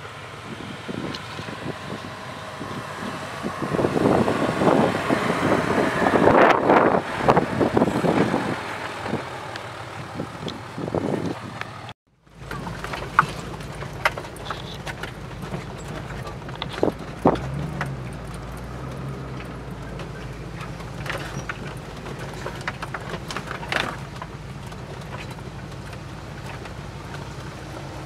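A car climbing a rough dirt slope, its engine and tyres growing loud as it comes close and then fading. After a sudden cut comes the steady low drone of a Range Rover P38 driving slowly on a bumpy dirt track, heard from inside the cab, with occasional knocks and rattles.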